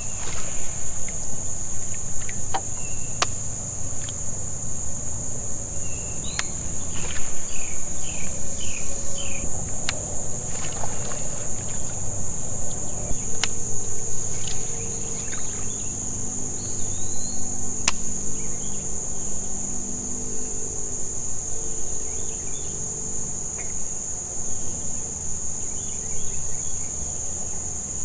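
Steady, high-pitched chorus of summer insects, with a few short chirps and occasional sharp clicks over it, and a low hum joining about halfway through.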